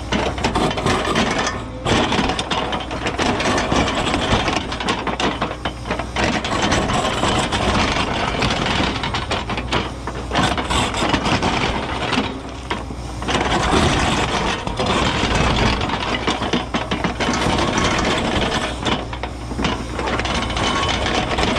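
Cat 314E excavator's diesel engine running under load, with grinding and rattling as the ripper tooth tears into hard bluestone rock. The sound eases briefly a few times as the machine pauses between pulls.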